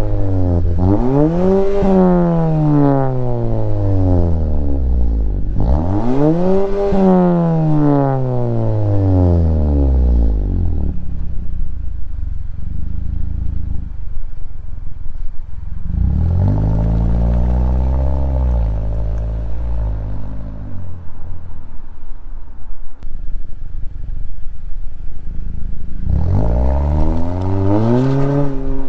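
Mazda 3 Turbo's turbocharged 2.5-litre four-cylinder, breathing through a Corksport cat-back exhaust fitted with a Vibrant resonator, revved hard twice at wide-open throttle. Each rev climbs in about a second and falls back slowly to idle. After a spell of idling the engine rises and falls more gently as the car pulls away in a soft launch, and near the end the revs climb sharply again.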